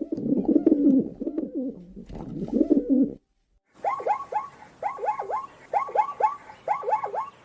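Pigeon cooing in low, wavering coos for about three seconds. After a short break, a different call follows: a run of quick notes that each fall sharply in pitch, coming in groups of two and three.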